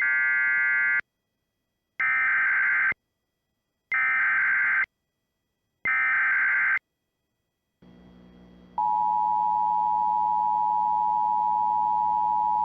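Emergency Alert System broadcast: four one-second bursts of shrill, buzzing SAME header data about two seconds apart, encoding the start of an Evacuation Immediate alert. Then, about nine seconds in, the steady two-tone EAS attention signal (853 and 960 Hz together) begins and holds.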